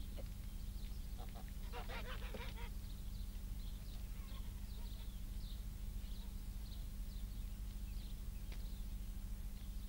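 Farmyard geese honking in a short burst about two seconds in, with small birds chirping faintly throughout over a steady low hum.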